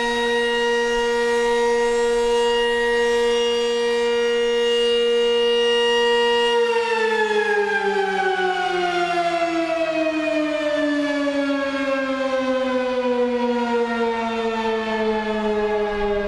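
Civil defense siren sounding a steady wail, then winding down about six and a half seconds in, its pitch falling slowly and smoothly.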